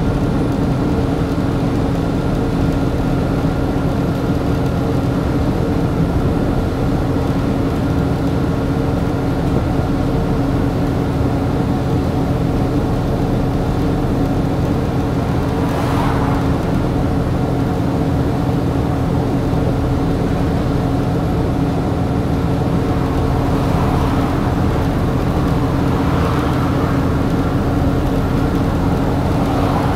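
Volvo B7TL double-decker bus's diesel engine running at a steady pitch under road noise, heard from inside the lower saloon. A few brief whooshes pass about halfway through and near the end.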